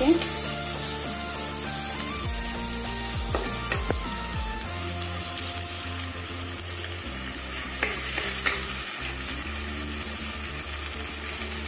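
Chopped onions, tomatoes and green chillies sizzling in hot oil in a clay pot, stirred with a wooden spatula that scrapes the pot a few times, as the tomato-onion base is sautéed down soft.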